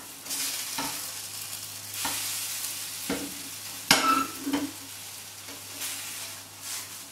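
Mung bean pancake sizzling in a frying pan while a slotted spatula scrapes and knocks against the pan under it, with several sharp knocks in the first four and a half seconds.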